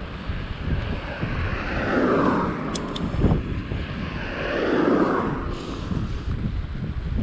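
Wind rumbling on the microphone of a moving bicycle, with two motor vehicles passing, each swelling and fading away, about two and five seconds in. Two brief faint clicks come about three seconds in.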